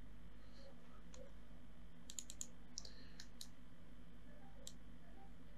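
Computer mouse clicks, with several close together between about two and three and a half seconds in and single ones before and after, over a faint steady low hum.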